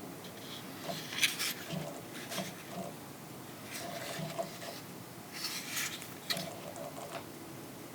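Plastic clicks and rubbing from hands handling a Leo Prime Transformers action figure, in scattered short bursts with a few sharper snaps, the loudest just over a second in.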